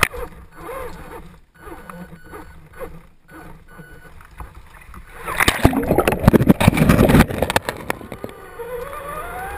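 Water churning and splashing around a Traxxas Summit RC truck driving through a river. It is fairly quiet at first, then loud and rough from about five seconds in until about eight seconds in.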